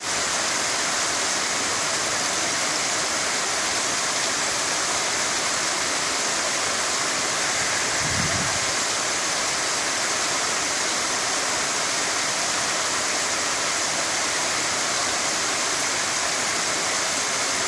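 Muddy floodwater rushing down a rocky dirt channel, a steady, full roar of runoff from heavy rain. A brief low thump about halfway through.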